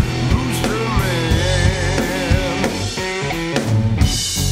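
Blues-rock band playing: a drum kit, guitar and a male voice singing.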